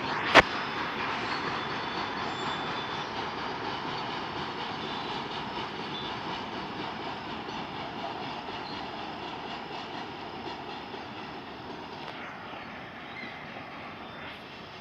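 Goods train rolling past: a steady rushing noise that slowly fades as it moves away. One sharp click about half a second in.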